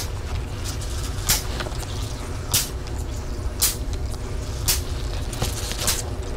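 Backpack splatter gun firing short, high squirts of herbicide about once every second, over a steady low rumble.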